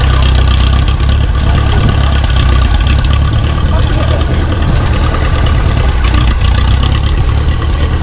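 Grey Ferguson tractor's engine running steadily at a low idle while the tractor creeps along.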